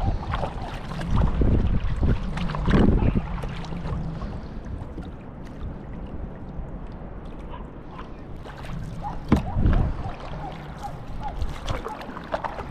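Sea kayak being paddled: water splashing and sloshing with the paddle strokes, under a steady low rumble of wind on the microphone.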